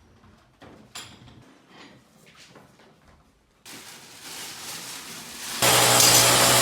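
Faint knocks and handling clicks, then a rising noise. About two-thirds of the way in, a power tool starts abruptly and runs loud and steady with a low hum and a harsh rattle, as used in fitting an air conditioner.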